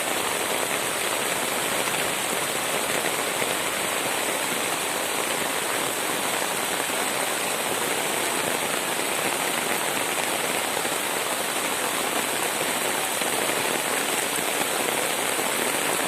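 Steady rain falling and pattering on surfaces, an even hiss with no breaks.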